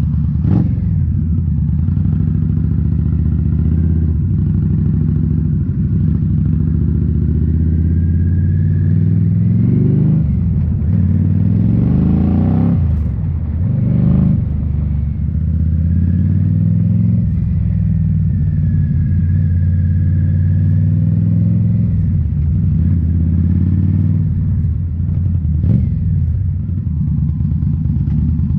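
Indian Scout Bobber's V-twin engine running through Rinehart slip-on mufflers while riding, its revs rising and falling several times as the rider changes speed and gear, with a few sharp clicks.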